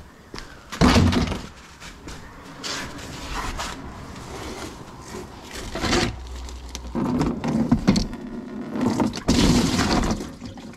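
Irregular scraping and knocking of hands-on work on a coolant hose and metal pipe, with louder bumps about a second in, near six seconds and around nine to ten seconds.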